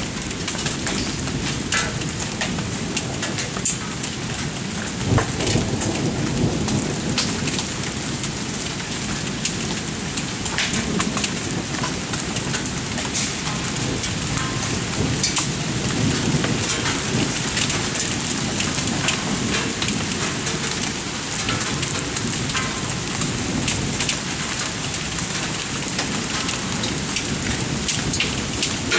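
Pea- to marble-size hail and heavy rain coming down in a severe thunderstorm: a steady hiss of rain with many sharp ticks of hailstones striking hard surfaces, and low swells of thunder rumbling under it.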